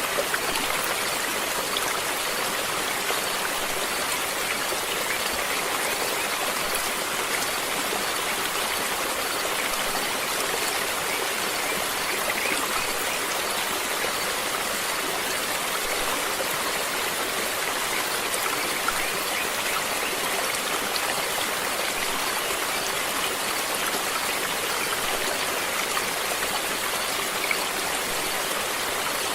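Running water of a stream flowing steadily, an even rushing splash with no break.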